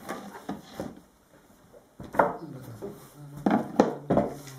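Loose-leaf Tibetan scripture volume and its cover boards being handled on a wooden table: a string of separate sharp knocks and rustles as the covers are set down and lifted, the loudest in the second half.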